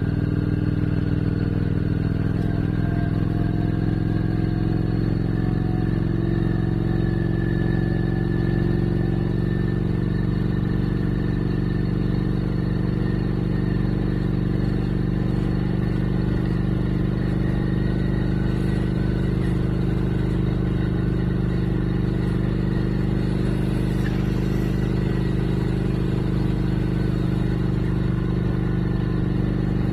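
Motorcycle engine running at a steady cruise, heard from mounted cameras on the bike. Its pitch rises slightly over the first several seconds, then holds steady.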